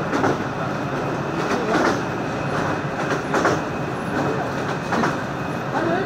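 Passenger train running on the rails, heard from inside the carriage: a steady rumble and rattle, with a clack from the wheels about every second and a half.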